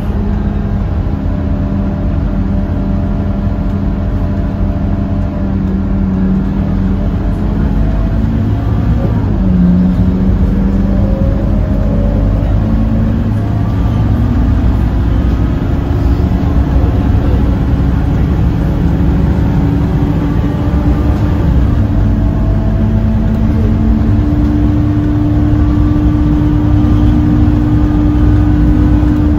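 Scania K230UB single-deck bus's diesel engine running under way, its pitch shifting up and down several times as the bus changes speed, then holding a steady higher note from about three-quarters of the way in.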